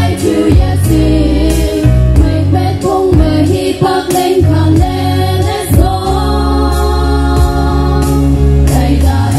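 A female vocal group sings a Konyak gospel song in harmony through microphones over amplified backing music with bass and drums. Near the end they hold one long chord for about three seconds.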